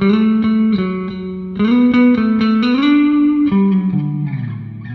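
Squier Bass VI, a six-string baritone bass, played with a pick midway between the neck and the bridge, with the neck and bridge pickups on: a melodic line of plucked, ringing notes, ending on a lower note held out as it fades.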